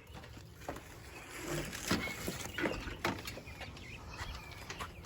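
Scattered irregular knocks, clicks and rustling of a sealed wine fermenting container being handled and carried, with a few faint short chirps.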